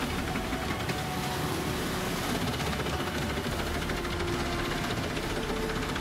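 Gandini Meccanica crane-fed drum wood chipper running under load, its rotating drum of cone-shaped blades crushing logs into chips, a steady dense grinding.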